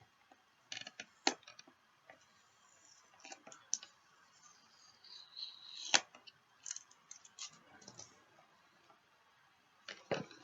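Packaging of a GoPro Hero 3 being handled and opened: scattered clicks and short rustles, with the sharpest click about six seconds in.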